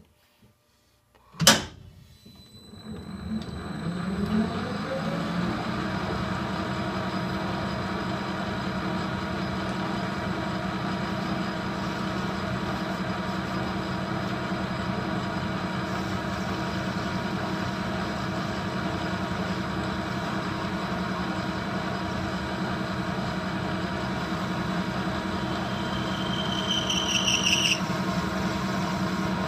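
A metal lathe switched on with a sharp clunk, its motor and spindle spinning up over about two seconds and then running steadily. Near the end there is a short high, rising squeal.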